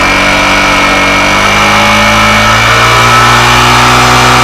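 Small motorcycle engine held at raised revs, its pitch creeping slowly upward, while the battery's charging is checked on a meter.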